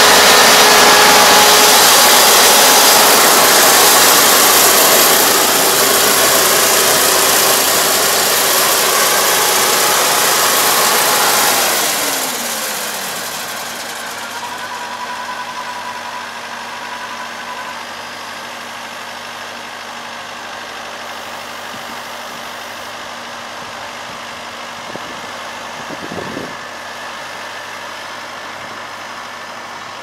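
Kubota ER470 combine harvester's diesel engine running loud and close, then its revs fall away about twelve seconds in, after which it runs on at a steady, quieter level.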